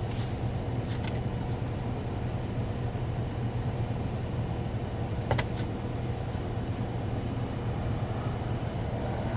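Cadillac DeVille engine and road noise heard from inside the cabin while driving, a steady low hum; the engine has a random misfire (code P0300). A sharp click about five seconds in, and a few small clicks about a second in.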